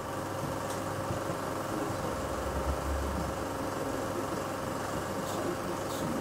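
A 16 mm film projector running: a steady mechanical whir with a constant hum.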